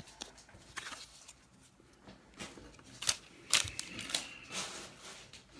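Football trading cards being handled and flipped through, with soft slides and scattered light clicks and taps, a few sharper ones past the middle.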